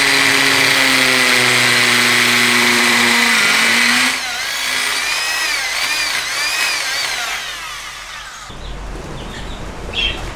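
Power drill drilling a hole where there was none: it runs at a steady pitch for about four seconds, then wavers up and down in pitch for a few seconds before stopping.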